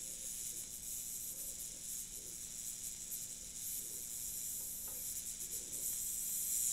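TIG welding arc on stainless steel at 100 amps: a steady, quiet high hiss with a faint low hum underneath. The current is just barely enough for the joint.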